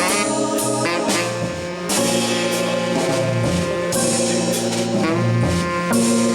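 Live jazz from an organ trio: tenor saxophone playing held, changing notes over organ, with drums keeping time on cymbals.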